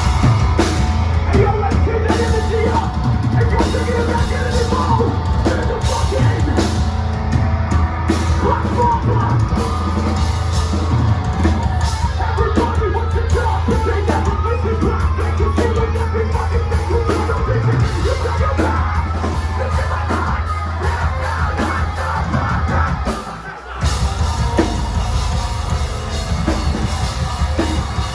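Metalcore band playing live, loud: heavy distorted guitars and bass over a pounding drum kit, with yelled vocals. The music breaks off for a moment about 23 seconds in and comes straight back in.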